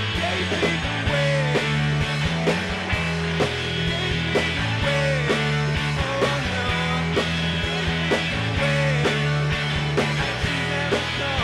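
Rock band playing, with electric guitars and a drum kit keeping a steady beat and a male singer's voice over them.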